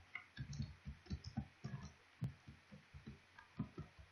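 Faint computer keyboard typing: quick, irregular keystrokes, several a second, with one sharper click about halfway through.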